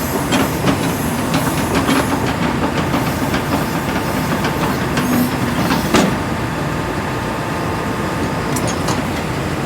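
JCB 220XLC tracked excavator running, with a steady engine and faint hydraulic whine under repeated metallic clanks and knocks, strongest in the first two seconds, and one sharp clank about six seconds in.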